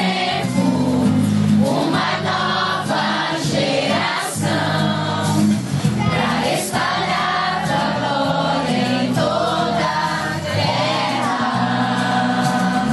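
A group singing a Christian worship song together, with instrumental accompaniment.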